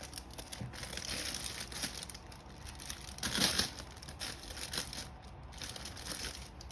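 Plastic wrapping crinkling as it is handled, with a louder crinkle about halfway through.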